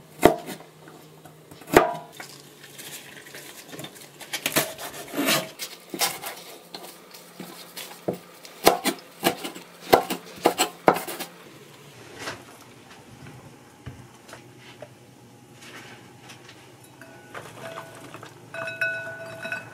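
Kitchen knife chopping garlic and then green vegetables on a cutting board: sharp knocks, some single and some in quick runs, for about the first eleven seconds. After that comes quieter handling, and near the end a glass bowl rings lightly as bean sprouts are dropped into it.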